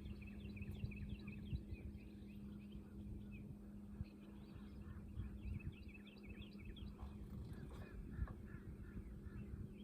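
Birds chirping in quick runs of short calls, over a steady low hum and rumble.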